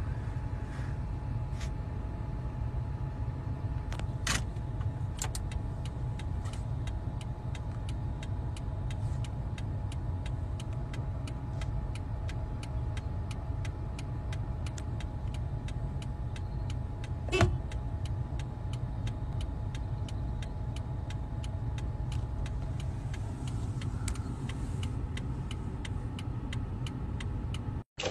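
Car engine idling, heard from inside the cabin: a steady low rumble with a faint hum above it, and one sharp click about two-thirds of the way through.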